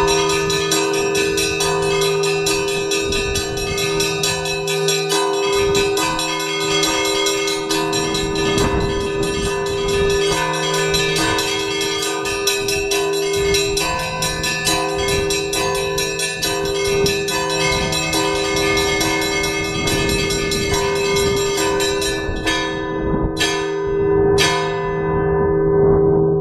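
Russian Orthodox church bell ringing (zvon) on a five-bell belfry: the small bells are struck in a fast, dense pattern over the steady hum of the larger bells. About 22 seconds in the fast ringing stops, three last single strikes follow about a second apart, and the big bells ring on.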